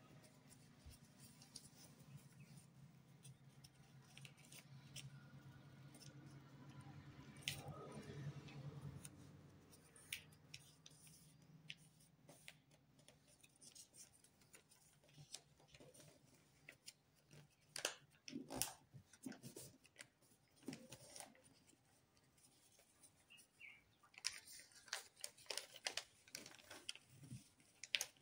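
Faint rustling and crinkling of a sheet of lined notebook paper being folded and creased by hand, in scattered soft crackles and taps that come more often in the second half. A faint low hum runs under the first half.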